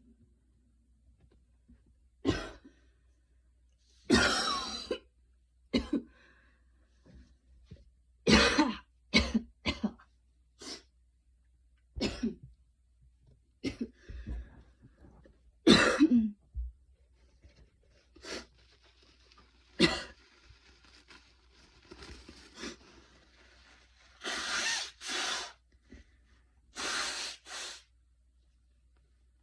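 A young woman coughing after a hard run: about a dozen short, sudden coughs, some single and some in quick clusters, with faint breathing between. Near the end come two longer, breathier sounds of about a second each.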